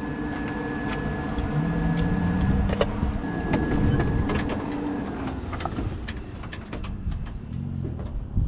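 A motor vehicle engine running at low speed, rising a little in pitch about a second and a half in, with frequent short knocks and rattles from the vehicles bumping slowly over rough ground.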